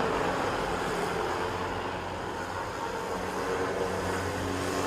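Steady low engine drone, dipping a little partway through and growing louder near the end.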